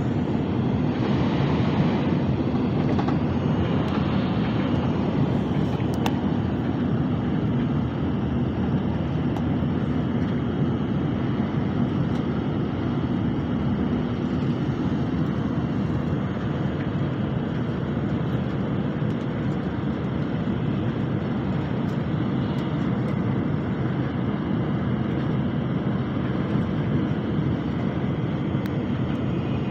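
Steady low rumble and rushing of a Nozomi Shinkansen bullet train running at high speed, heard from inside the passenger cabin, with a brighter hiss swelling briefly in the first few seconds.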